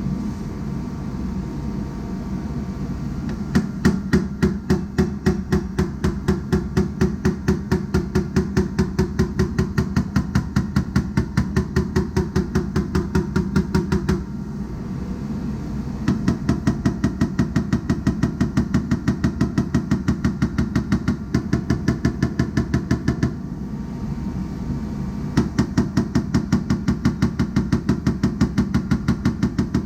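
Body hammer tapping sheet-metal body panel in quick, even light taps, about three to four a second, in three long runs with short pauses between, working out high and low spots. A steady hum runs underneath.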